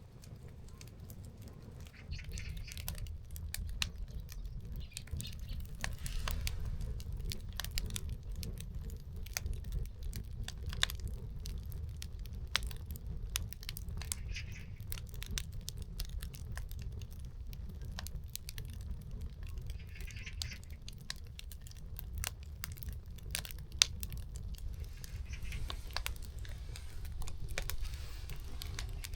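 Firewood catching and burning, crackling with irregular sharp snaps and pops over a steady low rumble.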